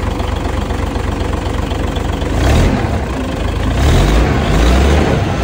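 Freshly overhauled engine running, a steady low rumble that swells louder twice, about halfway through and again near the end.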